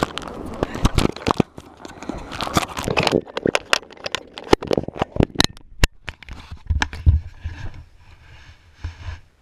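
Handling noise on a body- or helmet-worn action camera: rapid clicks and scraping as it rubs and knocks against its mount and clothing, easing off after about six seconds into a few dull low thumps.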